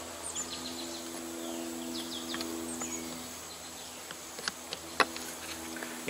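Honey bees buzzing close by: a steady hum that fades a little past halfway. Small birds chirp over it, and a couple of light clicks come near the end.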